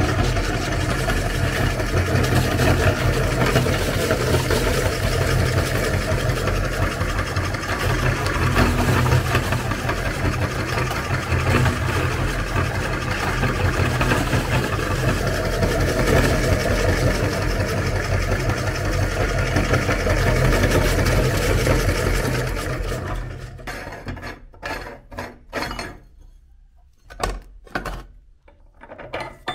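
Motor-driven meat grinder, turned by a belt and a large pulley wheel, running steadily with a low hum as its auger crushes dry biscuits through the cutting plate. The motor stops about 23 seconds in, and a few short metal knocks and scrapes follow as the grinder head is taken apart.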